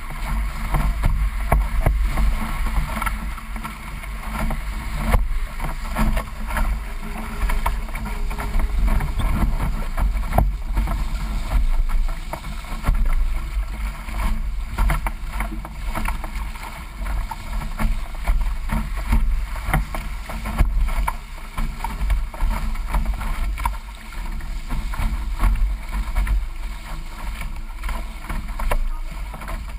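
D-One sailing dinghy under way, with heavy wind rumble on a microphone mounted on its bowsprit, and water rushing and splashing against the hull with frequent short knocks.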